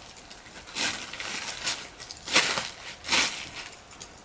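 Clear plastic blister packaging crackling in about four short bursts as it is pressed and popped open.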